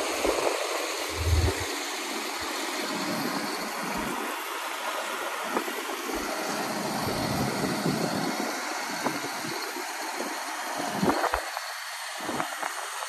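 CAT 559C knuckle boom loader's diesel engine running steadily at idle, with a few short knocks near the end.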